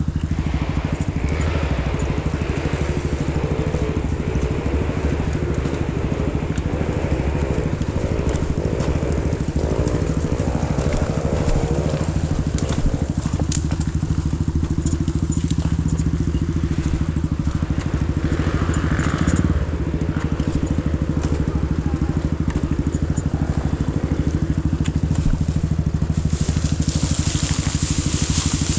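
Motorcycle engine running steadily under way, its drone unbroken, with a crackling rattle over it.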